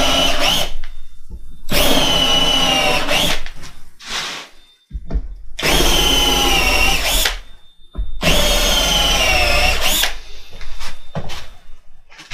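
Cordless drill driving screws through an oak plank into a CNC spoil board to hold it down, in four runs of one to two seconds each, the motor whining at a steady pitch and lifting briefly as each run ends.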